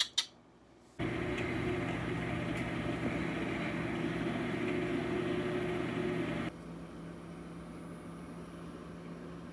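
Breville Combi-Wave microwave running in air-fry mode: a steady hum with a rush of fan air. The sound drops to a quieter hum about six and a half seconds in.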